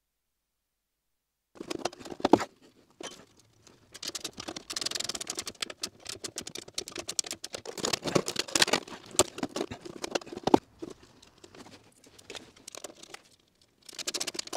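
After about a second and a half of silence, rustling and crinkling with many short clicks and knocks: heat-protection tape and its backing being handled and wrapped onto the parking heater's pipes under the van.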